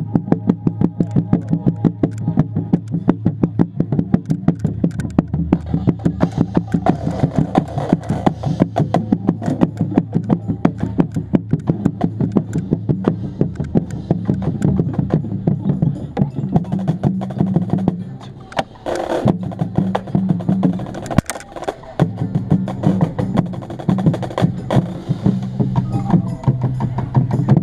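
Marching band playing, heard from on a bass drum: a fast, steady run of drum and percussion strokes over held low brass notes, with short breaks about two-thirds of the way through.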